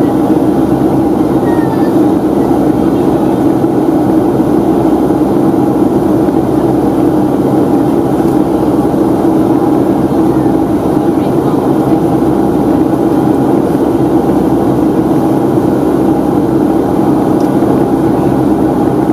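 Steady airliner cabin noise inside a Boeing 757-200 in flight: the constant rush of air and its Rolls-Royce RB211 engines, unchanging throughout.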